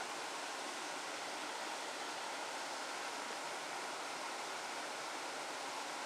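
Steady rush of flowing water from a jungle stream: an even hiss that does not change.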